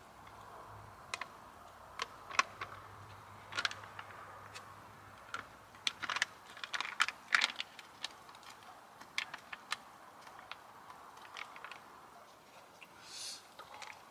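Irregular light clicks and clinks, like utensils and dishes being handled at a meal, over a faint steady background, with a short hiss near the end.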